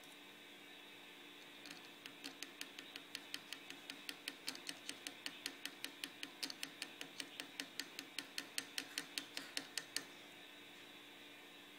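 A flat stick tapping a Rochelle salt crystal held in foil-wrapped alligator clips: a fast, even run of sharp clicks, about five a second, starting a couple of seconds in and stopping abruptly near the end. Each tap squeezes the crystal so that it makes a piezoelectric voltage.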